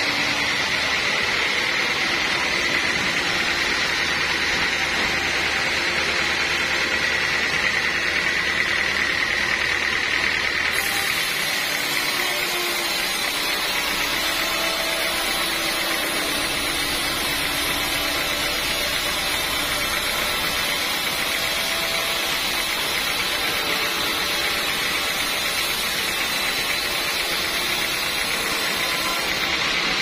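Band sawmill running and sawing a teak log into boards: a steady high-pitched tone of the blade cutting through the wood over the noise of the machine.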